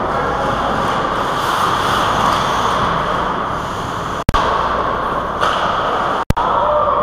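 Steady noise of an ice hockey game close to the goal: skates scraping on the ice amid the rink's constant hum. The sound cuts out for an instant twice with a click, about four and six seconds in.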